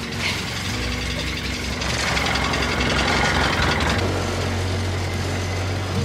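An engine running steadily at idle, with a hiss over it from about two seconds in to about four seconds in, when the low hum shifts.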